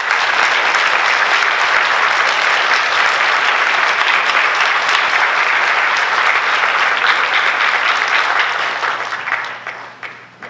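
Audience applauding steadily, then dying away over the last second or so.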